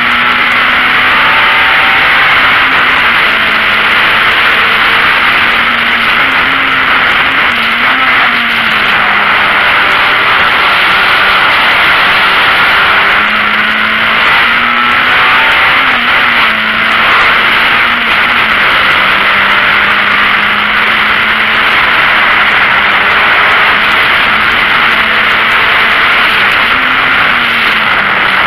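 Racing VW Golf Mk1's four-cylinder engine heard from inside the cabin at racing speed, its note rising and falling with the revs, under a loud, steady rush of road and wind noise.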